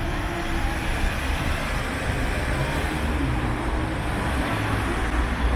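Steady traffic noise: a continuous low rumble of passing road vehicles.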